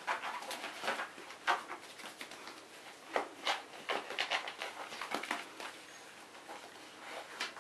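A cat wrestling and kicking a plush kicking toy on a wooden floor: irregular scuffing, rustling and soft thumps of fur, claws and cloth against the floorboards, easing off near the end.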